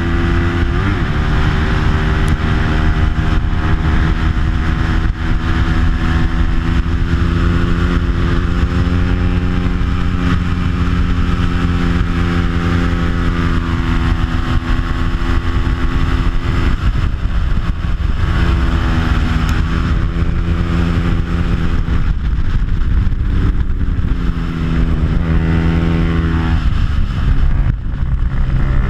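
Bajaj Pulsar 200's stock single-cylinder four-stroke engine, fitted with an aftermarket exhaust, running hard at racing speed and heard from on board over wind rush. The revs hold high for long stretches, then fall and climb again several times.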